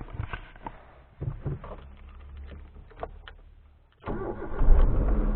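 Suzuki Alto 800's three-cylinder petrol engine starting: the engine catches suddenly about four seconds in and settles into a steady low-pitched run.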